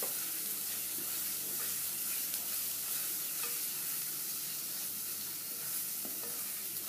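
Onion and spice masala (onion paste, ginger-garlic paste, red chilli, turmeric and coriander powder) frying with a steady sizzle in a non-stick kadai, while a spatula stirs and scrapes it around the pan.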